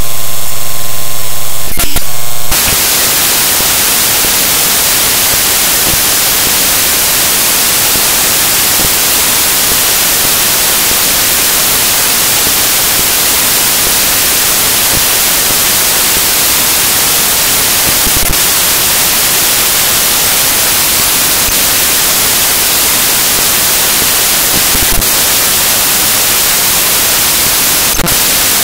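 Loud, steady static hiss fills the sound track with no speech, the sign of a lost audio feed or recording fault. A few faint clicks sound late on. It is preceded by a distorted, full-scale buzz that cuts off abruptly about two and a half seconds in.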